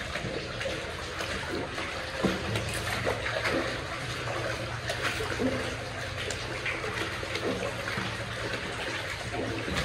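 Shallow water trickling and splashing, with many small irregular splashes over a steady flow. A faint low hum comes in about two and a half seconds in.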